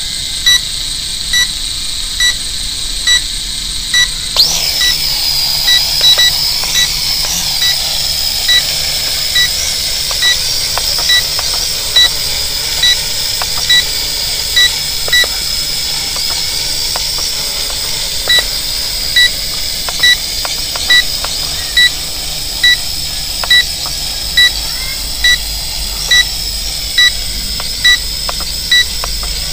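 Small brushless-motor quadcopter (TXD 8S) spinning up about four seconds in to a high propeller whine that then holds, wavering up and down in pitch as it flies. Under it, a steady electronic beeping at about one beep a second.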